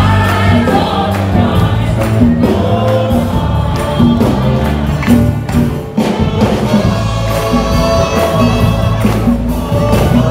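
Live congregational worship music: many voices singing together with a stage band led by a singer on microphone, over a steady percussion beat.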